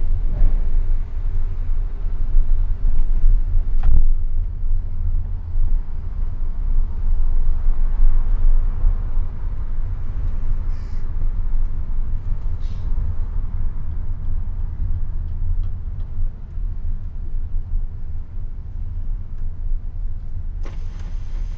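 Car driving over the ferry's steel linkspan ramp and onto the road: a steady low rumble of engine and tyres, with a single sharp knock about four seconds in.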